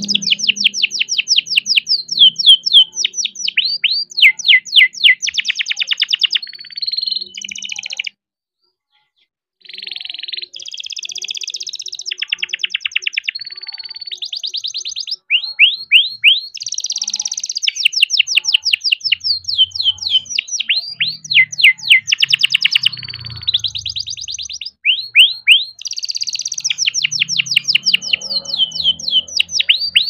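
Young male canary singing a long rolling song: fast trills of rapidly repeated high notes, phrase after phrase, with one break of about a second and a half roughly a third of the way through.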